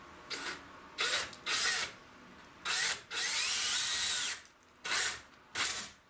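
Power drill turning a 7/8-inch spade bit through 1/4-inch plywood in a series of short bursts. One longer run of about a second, near the middle, has the motor's pitch rising and falling.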